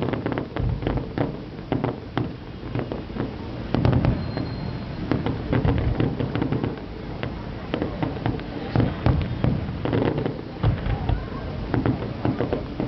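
A fireworks display: many sharp cracks and bangs in quick, irregular succession, the loudest about four seconds in.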